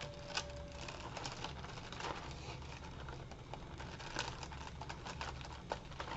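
Faint crackling and rustling of crepe paper pressed and smoothed by fingers, with scattered small ticks over a low steady hum.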